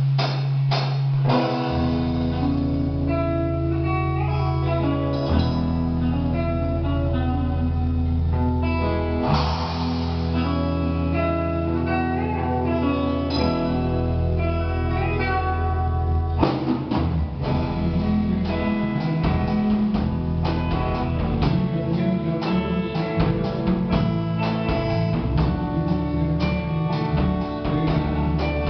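A rock band playing an instrumental passage: guitar over sustained bass notes and drum kit, with the drumming growing busier a little past halfway.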